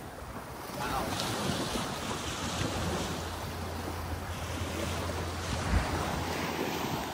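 Small waves washing onto a sandy shore, with wind rumbling on the microphone and a single low bump about six seconds in.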